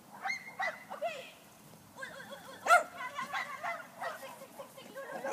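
Small terrier yapping and yipping in a string of short, excited barks, the loudest a little under three seconds in.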